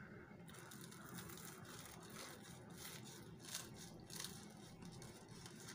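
Knife cutting through the crisp fried breadcrumb crust of a chicken roll: faint crunching and crackling, with a few sharper crunches between about two and four seconds in.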